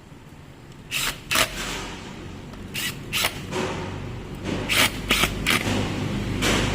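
Irregular clicks and knocks of hard tool parts being handled, starting about a second in, over a low steady hum.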